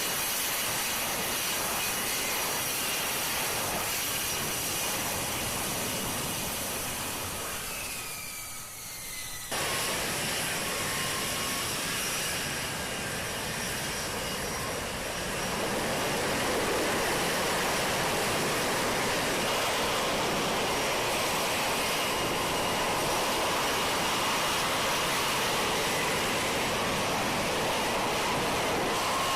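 F-35B Lightning II's F135 jet engine running, a loud steady rush of noise with a thin high turbine whine over it. The sound cuts off abruptly about nine and a half seconds in and resumes, then grows a little louder around sixteen seconds.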